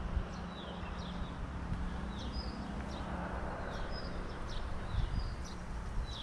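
Small songbirds chirping in short high calls, scattered throughout, over a low steady rumble of wind on the microphone.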